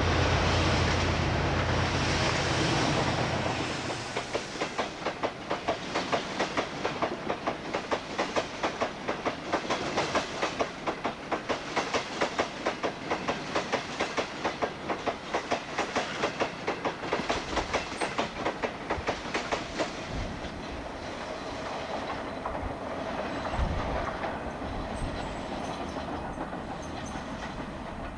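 A diesel locomotive hauling a merry-go-round coal train passes with a loud engine sound, then a long rake of coal hopper wagons rolls by with a steady clickety-clack of wheels over rail joints, about two a second. The sound fades away in the last few seconds as the train recedes.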